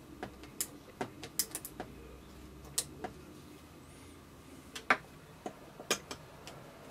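Light clicks and taps of an airsoft AEG's gearbox parts being handled, as the piston is picked up and fitted back into the open gearbox shell. There are a dozen or so scattered clicks, the sharpest about five seconds in.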